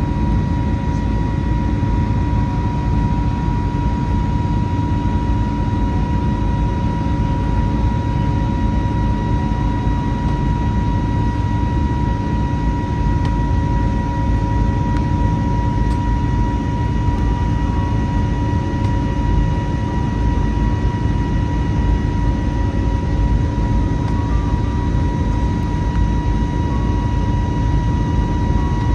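Airbus A320neo in flight, heard from inside the passenger cabin: the engines and airflow make a steady, loud drone with a deep rumble, and a clear high steady tone runs over it.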